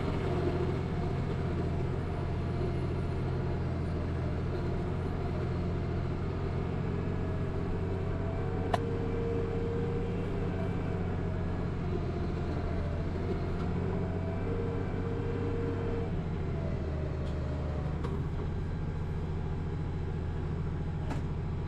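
International 1586 tractor's diesel engine running steadily under planting load, a constant low drone heard from inside the cab. A single sharp click comes about nine seconds in.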